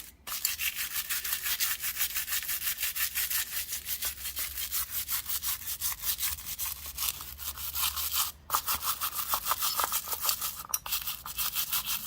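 Detailing brush scrubbing small metal pocketknife parts during cleaning, in quick back-and-forth strokes of about four or five a second, with two brief pauses.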